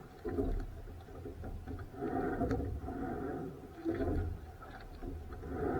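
Rowing strokes repeating about every two seconds, each stroke a roughly one-second rasping, creaking sound over a low rumble.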